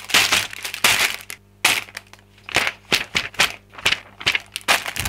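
Clear plastic bags of building bricks being handled, crinkling and crackling in a run of short bursts.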